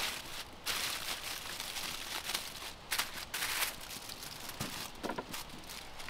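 Aluminium foil crinkling in irregular bursts as hands press and crimp it around a whole pumpkin, with a couple of light knocks about five seconds in.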